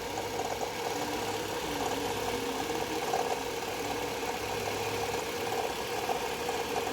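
Car engine idling with a steady mid-pitched noise from the alternator, the sign of a worn alternator bearing.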